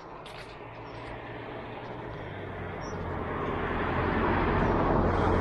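A vehicle approaching, its engine hum and rushing noise growing steadily louder and loudest near the end.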